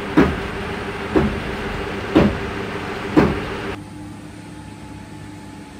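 Four footsteps on a concrete floor, about one a second, over the steady hum and rush of an electric fan; the fan's rush drops a little after the footsteps stop.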